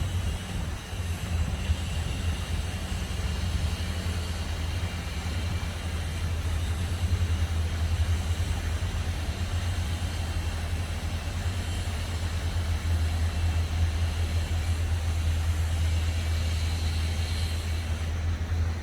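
Outdoor city ambience: a steady low rumble of distant traffic and construction works, with a faint even hiss above it.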